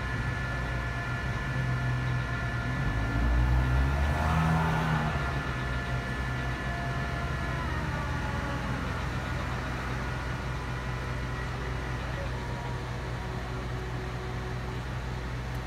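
Engine of heavy work machinery running steadily with a held hum. It revs up briefly about three to five seconds in, then falls back to its steady run.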